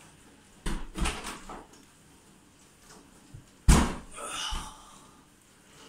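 Heavy thumps of a body doing a bodyweight exercise, hands and feet hitting the floor and a door: a first thud with a few smaller knocks, then a louder single thud about halfway through, followed by a short rustle.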